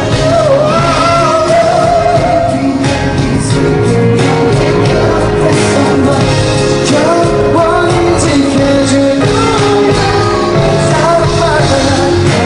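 Loud live pop music: a male vocal sings a wavering melody over a band with drums.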